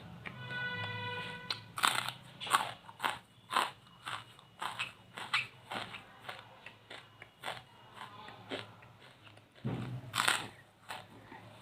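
Charcoal being bitten and chewed: sharp dry crunches at an uneven pace, about two a second, beginning about two seconds in after a short stretch of music that ends.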